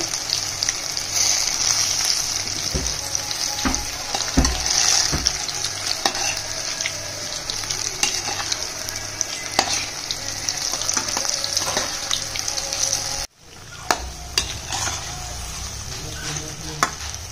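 Pakoras deep-frying in hot oil in a stainless steel kadhai, a steady sizzle, with a metal slotted spoon stirring and ticking against the pan. The sound cuts off abruptly about thirteen seconds in and comes back quieter, still sizzling with a few spoon taps.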